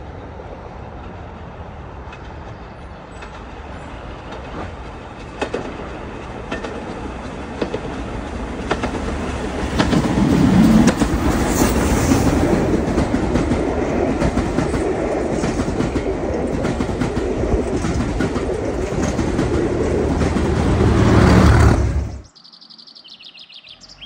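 The Jacobite steam-hauled passenger train rumbling past, its wheels clicking over the rail joints. It grows louder as it approaches and is loudest as it passes close from about ten seconds in. The sound cuts off abruptly a couple of seconds before the end.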